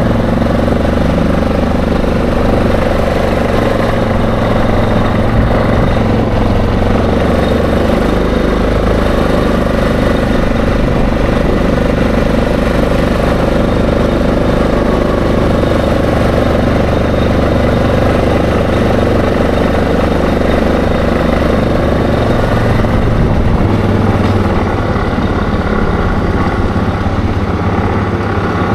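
ATV engine running steadily while riding, heard close up from on board, its pitch holding nearly level with small shifts now and then.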